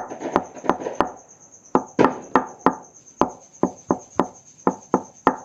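High-heeled shoe heels tapped repeatedly on a hard floor, sharp clacks with a short ring, about three a second. The heel tapped has lost its worn rubber heel tip, so the bare heel strikes the floor with the clacking noise that marks a worn-out heel tip.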